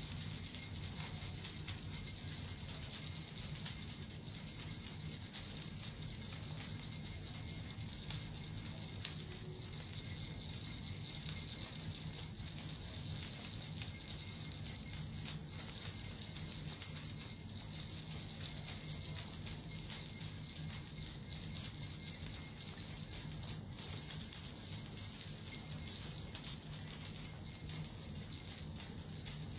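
Small jingle bells (suzu) shaken continuously in a steady, dense jingling.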